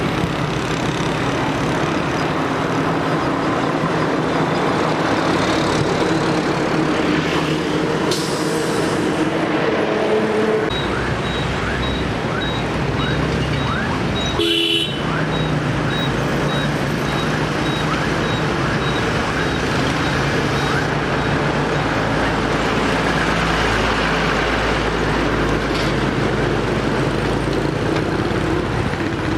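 Road traffic of motorbikes, cars and lorries passing, with a steady engine and tyre noise. About halfway there is a short horn toot, and around then a run of quick, evenly spaced high beeps, about two a second.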